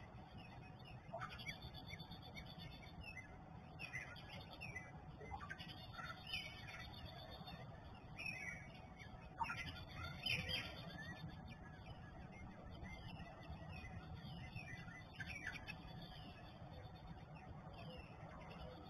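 Songbirds singing: northern cardinals, Carolina wrens and an American robin, many short chirps and down-slurred whistles overlapping, over a faint low hum.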